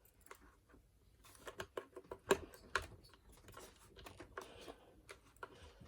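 Faint clicks, taps and light scraping as a part is worked into place on a Kirby G4 vacuum cleaner by hand, with a sharper click a little over two seconds in.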